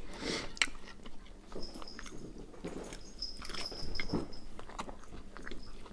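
Pet dogs romping in the room: scattered faint scuffles, clicks and knocks, with a faint high squeak twice.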